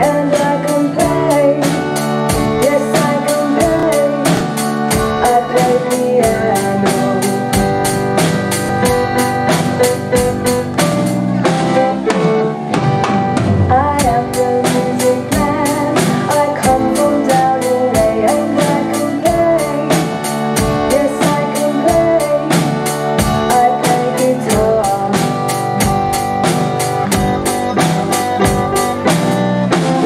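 A drum kit played live with a steady rock beat, kick drum and cymbal hits, over a backing track with guitar and singing. The cymbal hits drop out briefly about twelve seconds in, then the beat picks up again.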